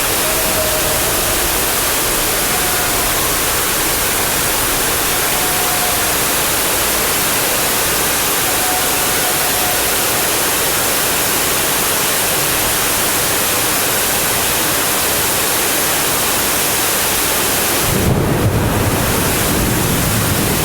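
Heavy rain and water rushing in a steady, loud hiss without a break. About eighteen seconds in, a lower rumble joins it.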